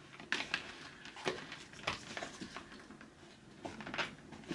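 A skincare product box being handled as a bottle is worked out of its tight packaging: irregular light taps, clicks and soft rustles.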